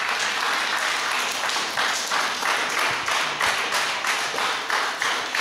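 Audience applauding: many hands clapping, steady throughout.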